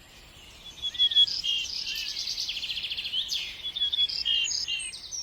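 Songbirds singing outdoors: a busy run of varied chirps, short whistled notes and rapid buzzy trills, getting louder about a second in.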